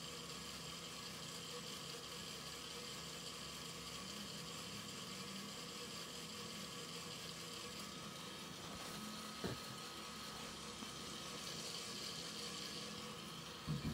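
Kaleido M6 Pro coffee roaster running steadily, its drum turning and fan blowing, making a low whirring hum during the drying stage of the roast. Two short clicks come through, about nine and a half seconds in and again just before the end.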